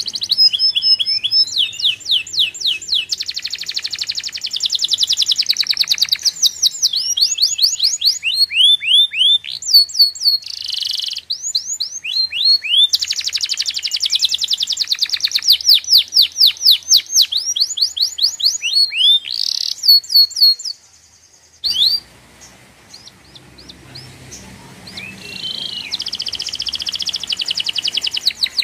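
Small birds chirping and trilling in long runs of quick, high notes. The sound breaks off briefly about three quarters of the way through, then resumes more quietly.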